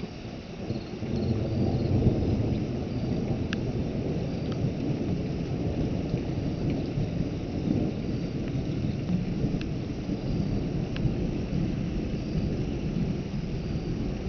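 Thunder rolling in a long low rumble that swells about a second in and keeps going, with rain falling.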